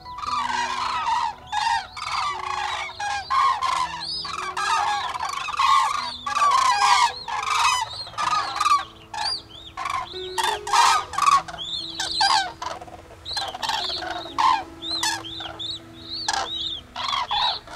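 A large flock of common cranes calling in flight overhead: many overlapping calls that rise and fall in loudness.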